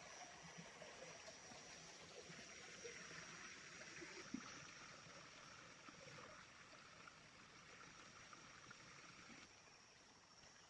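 Faint flowing water of a small river, with a steady thin high-pitched whine and a few soft small knocks; one sharper tap about four seconds in, and the sound gets quieter near the end.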